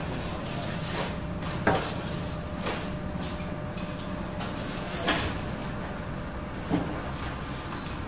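Handling knocks and clicks as ribbon and a core are fitted onto the shafts of a TTR ribbon slitter rewinder, three sharper knocks among them, over a steady low hum.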